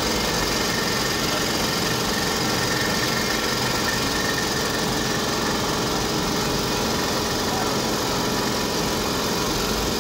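Dental equipment running with a steady, even motor noise, switched on just before.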